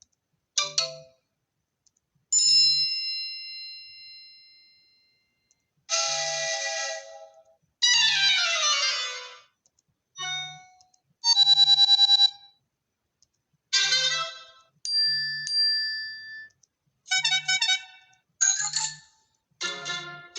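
A run of iPhone XR built-in ringtones and alert tones previewed one after another: about ten short, different electronic chimes and jingles, each lasting one to three seconds, with brief gaps between them.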